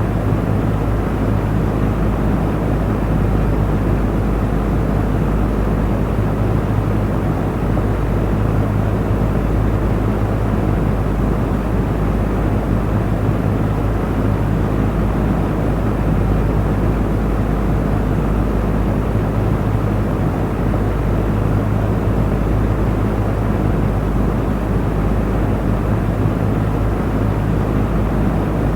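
Electric cooling fan running steadily: an even rush of air over a low motor hum.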